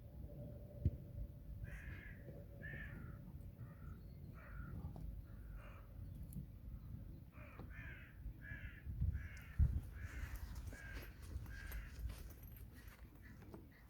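A bird giving a dozen or so short, harsh calls in two runs, the calls coming a little faster in the second run. Under them is a steady low rumble, and two dull thumps about a second in and about nine and a half seconds in are the loudest moments.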